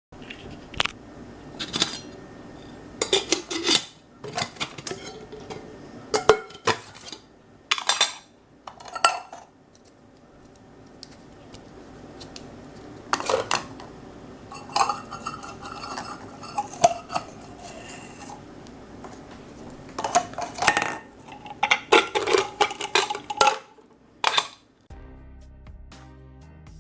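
Camping kettle and mugs clanking and clinking as the pieces are handled, set down and fitted together, in irregular sharp knocks with a short metallic ring. Background music comes in near the end.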